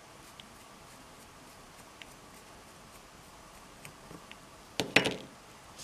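A small slotted screwdriver working on a small plastic push switch: a few faint ticks and scrapes, then a short burst of louder clicks and knocks about five seconds in.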